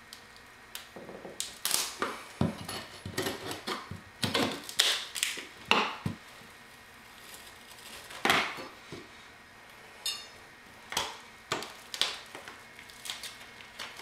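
Flat pry bar levering up an old metal carpet transition strip: irregular metallic clinks, knocks and scrapes as the bar bites under the strip and it comes loose from the floor.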